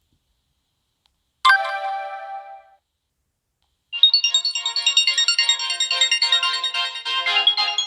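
Ringtones of a Nokia N73 (SoftBank 705NK) phone: a single chime about a second and a half in that dies away over about a second. After a short silence a busy melodic ringtone of quick repeated notes starts about four seconds in.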